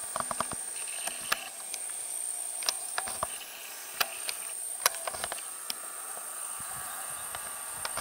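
Outdoor ambience: a steady high-pitched insect drone that breaks off briefly a little past three seconds, with scattered sharp clicks and ticks over it.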